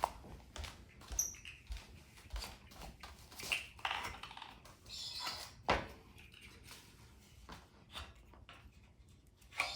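Parts being popped off the ends of the Thule Canyon XT basket's frame tubes by hand: scattered clicks and light knocks of handled parts, with one sharper knock a little before six seconds in.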